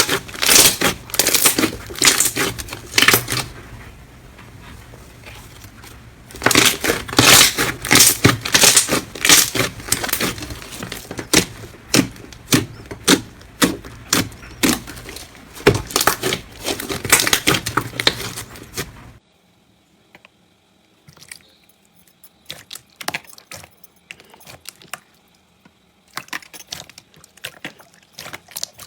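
Slime being squeezed and pressed by hands, a dense run of crunchy crackles and pops. About nineteen seconds in it cuts to a much quieter stretch with only scattered clicks and pops.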